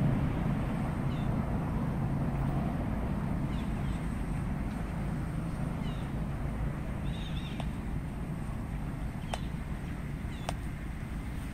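Steady low rumbling outdoor noise with faint, short, high chirping animal calls every one to three seconds, and a few sharp clicks in the second half.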